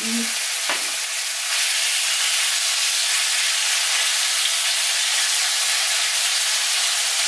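Cubed raw beef sizzling in hot rapeseed oil in a pan as it starts to sear, stirred and spread with a spoon. There is a short knock near the start, and the sizzle grows a little louder after about a second and a half.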